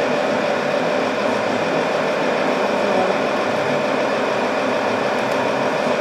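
Radio-controlled 6x6 tipper truck's electric drive running steadily as it crawls up a sand slope: an even mechanical whir from the motor and gearbox.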